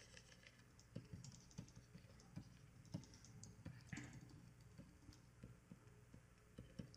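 Near silence, with faint, irregular clicks from working at a computer over a low steady hum.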